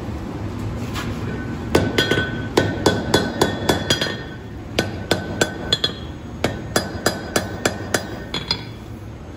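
Hand hammer striking red-hot pattern-welded steel on an anvil, forging a spear head: two runs of quick blows, about four a second, with a short pause between, each blow leaving a brief ring from the anvil. A steady roar of the forge runs underneath.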